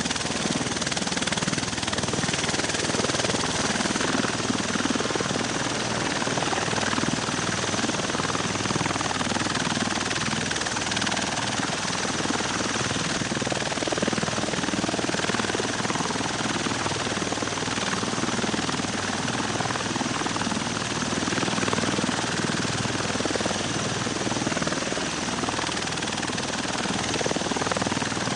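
V-22 Osprey tiltrotor's proprotors and engines running steadily, a dense, even rotor and engine noise with no break.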